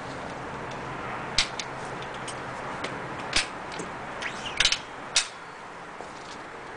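Sharp metallic clicks and clacks from a Weihrauch HW97K .177 underlever spring-piston air rifle being cocked. There are about nine clicks, loudest about halfway through, with a quick cluster shortly before the last one, over steady background noise.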